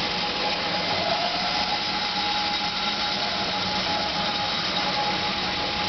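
Rockwell 20-inch variable speed metal cutting bandsaw, Model 28-3x5, running steadily in its high speed range with a constant whine over an even hiss. Its pitch climbs a little in the first second as the speed settles up.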